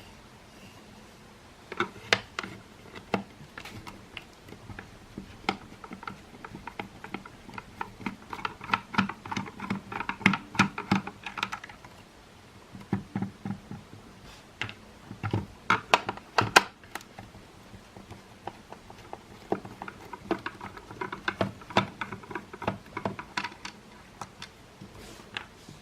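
Hard plastic parts of a Makita CL108FD cordless vacuum being handled and taken apart: irregular clicks, taps and rattles that come in clusters with short pauses between.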